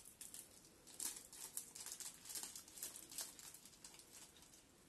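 Faint crinkling and rustling of a small bag of incense sticks being handled and opened by hand, a run of small quick crackles through the middle.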